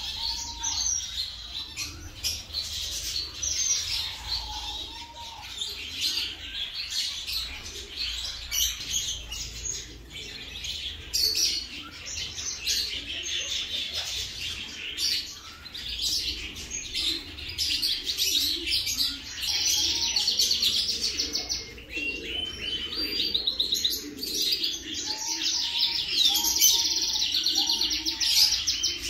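Many small birds chirping and twittering without pause, with quick repeated trills and some lower calls underneath.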